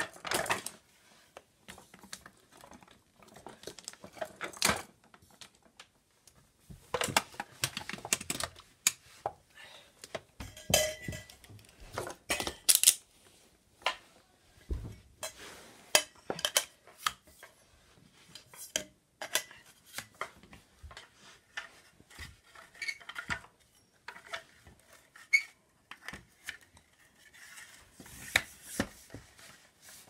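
Metal extension tubes and fittings of a vintage Nilfisk GA70 vacuum cleaner being handled and pushed together: irregular clinks, knocks and scrapes of metal on metal, with quiet gaps between.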